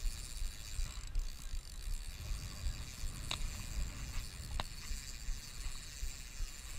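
Spinning reel being cranked to retrieve line against a hooked fish: a pulsing mechanical ratcheting over a low rumble, with two sharp clicks a little past the middle.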